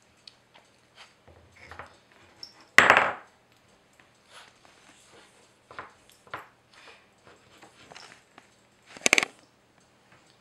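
Wooden pegs of a Nina Ottosson Dog Fighter puzzle board knocking and clattering as a puppy noses and paws at them: scattered light clicks, with two louder knocks, about three seconds in and near the end.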